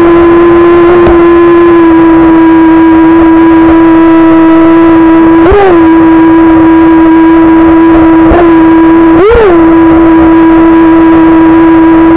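Steady whine of an RC jet boat's brushless outrunner motor spinning a 20 mm jet drive, rising briefly in pitch twice as the throttle is blipped, with a couple of faint clicks.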